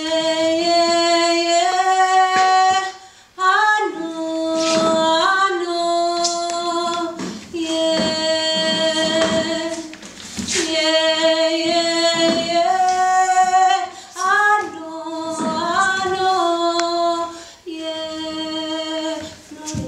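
A woman singing in long held notes that slide from one pitch to the next, in phrases of two to three seconds with short breaks between them.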